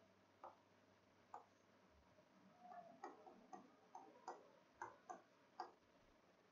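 Faint, irregular taps and clicks of a pen tip on the glass of an interactive smartboard as words are handwritten on it, about ten in all, sparse at first and coming closer together from about halfway through.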